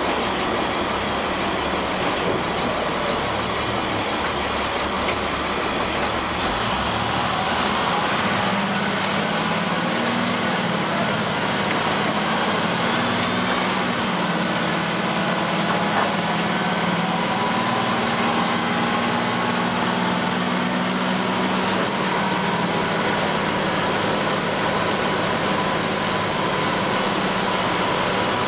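1999 International diesel school bus under way, heard from inside: a steady rush of road and engine noise with rattling. A low engine drone comes up through the middle stretch and fades again.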